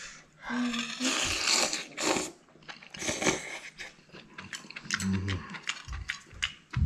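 A man slurping spicy seafood noodles and broth: two long slurps, about a second in and again around three seconds. They are followed by a short closed-mouth hum and chewing, with small clicks of a spoon and chopsticks against a ceramic bowl near the end.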